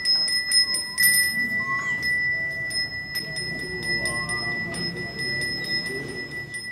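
A Balinese priest's hand bell (genta) rung continuously during temple prayers: a steady high ringing, kept going by quick repeated strikes of the clapper.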